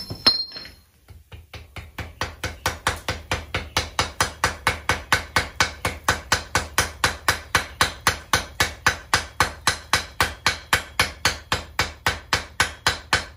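Blacksmith's hand hammer striking a white-hot folded bar of mild steel on the anvil in a rapid, even series of light blows, about four a second, forge-welding the fold together at sparkling welding heat. Just before the hammering there is a single loud metallic clank with a short ring.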